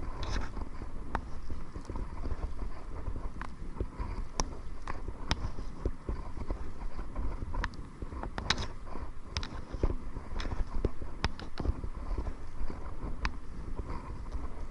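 A kayak being paddled into the wind: irregular sharp clicks and knocks of paddle and hull, several a second at times, over a steady low wind rumble on the microphone.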